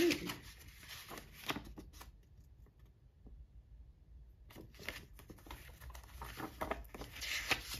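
Vintage paper greeting cards rustling and sliding as they are handled, opened and laid on a pile, with a quiet stretch of about two seconds in the middle.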